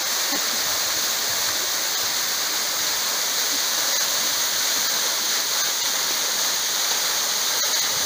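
Steady rush of a thin waterfall falling onto rock, its flow reduced.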